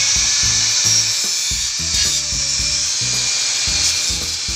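Handheld angle grinder running against a length of galvanized steel, a loud, steady high-pitched hissing grind. Background music with a steady beat plays underneath.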